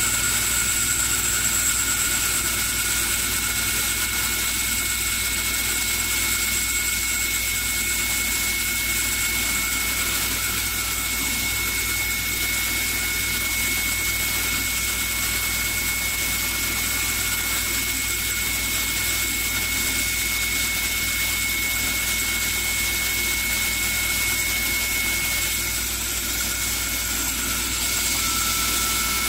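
Automatic wood-handle turning lathe running as it turns and sands a wooden handle: a steady machine whine with several held high tones over an even noise and a low hum. One of the high tones drops out near the end.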